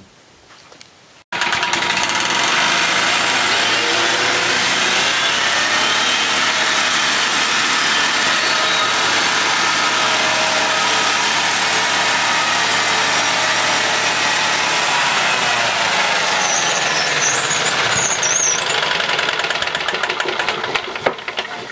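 Homemade sawmill's small engine running steadily while the saw cuts a dry board. It cuts in abruptly about a second in, its pitch drops about three quarters of the way through, and it fades near the end.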